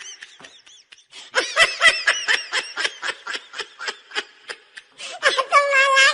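High-pitched laughter in rapid short bursts, several a second, going into a longer held squeal near the end.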